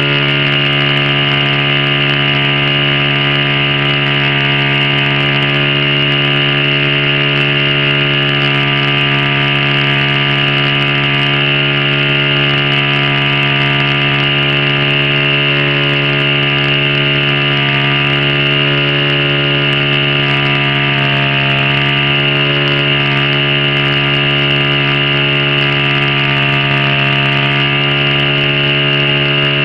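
O.S. 70 Surpass four-stroke glow engine of a model plane, running steadily on the ground with its propeller turning, holding one even speed throughout.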